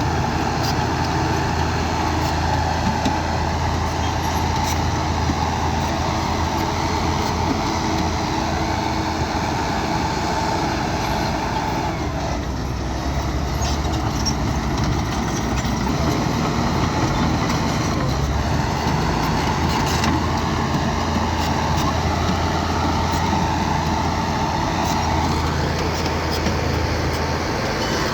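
Small crawler bulldozer's diesel engine running steadily under working load, with a few light metallic clanks; the engine note eases briefly about halfway through.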